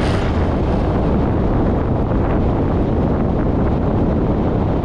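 Heavy wind buffeting the microphone of a moving motorcycle, with the steady drone of its engine and road noise underneath.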